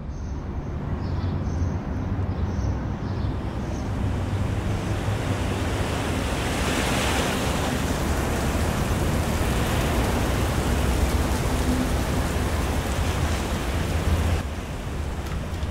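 Steady rushing ambient noise over a deep low rumble, swelling slightly in the middle and dropping off suddenly near the end.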